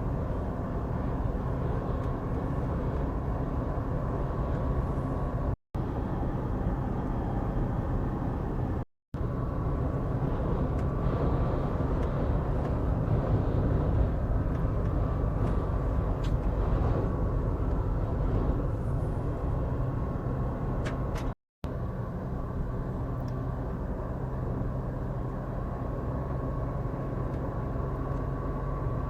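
Steady rumble and road noise of a moving vehicle, broken by a few abrupt edit cuts.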